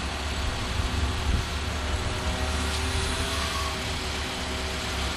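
Linde hydrostatic-drive forklift's engine running steadily at low engine speed while the truck climbs a step, quiet despite the load of the climb.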